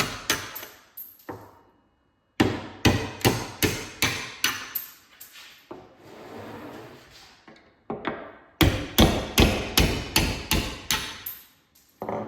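Runs of sharp, evenly paced knocks, about three a second, each with a short ringing tail, in three bursts separated by pauses; the sound stops dead for about half a second near the start.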